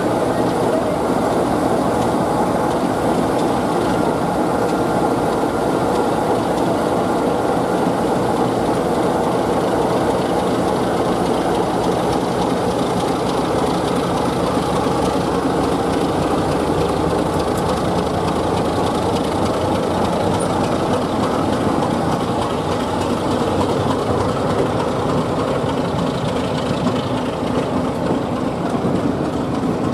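BR Class 33 diesel-electric locomotive D6566 pulling slowly away with its engine running steadily, followed by its coaches rolling past on the rails. The sound is a continuous, even mix of diesel engine and wheel-on-rail rumble, with a faint high tone for a few seconds early on.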